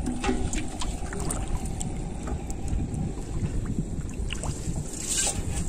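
Shallow water sloshing and lapping around legs and hands as small fish are picked from a net, with scattered light clicks and a short, sharper splash about five seconds in.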